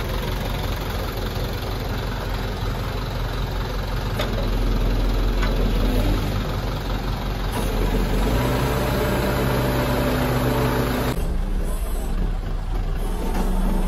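Diesel engine of a Hyundai HD120SL crane truck running steadily while the crane's outrigger legs are set down. The sound changes abruptly near the end.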